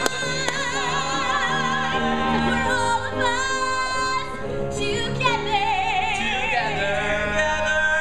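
Several voices, men and a woman, singing together in a mock-operatic style with heavy vibrato and long held notes.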